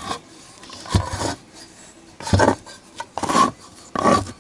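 A steel bar scraping and grating against metal inside an open engine crankcase, four rasping strokes, as the tip of a homemade oil slinger is levered into a bend.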